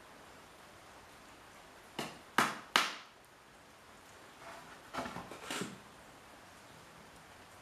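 Claw hammer driving a stainless steel soffit nail into a pine board: a light tap, then two sharp strikes about two seconds in, followed by a cluster of softer knocks a few seconds later.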